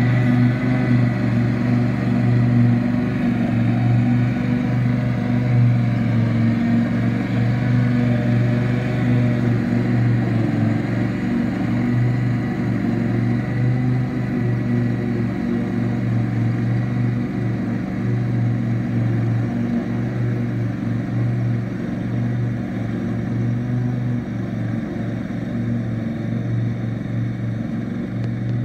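Husqvarna ride-on lawn tractor mowing grass, its engine and cutting deck, fitted with Kavli Finisha blades, running steadily under load. The sound fades gradually as the tractor moves away.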